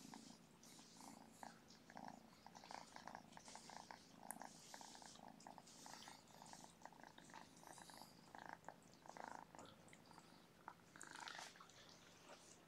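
Faint cat purring close by, a quick run of soft pulses, with light rustling.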